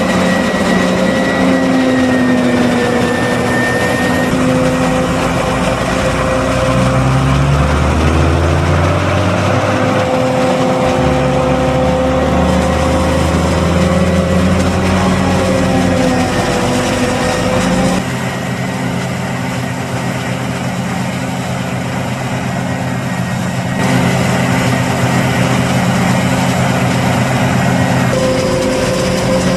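Forage harvester and tractor engines running steadily while chopping maize, with a constant high whine over the diesel drone. A low engine note rises in pitch about a quarter of the way through, and the mix of machines shifts several times.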